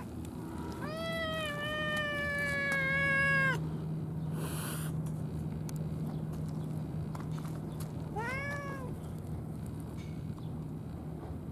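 Tabby cat meowing: one long drawn-out meow of almost three seconds that falls slightly in pitch, then a short rising-and-falling meow about eight seconds in.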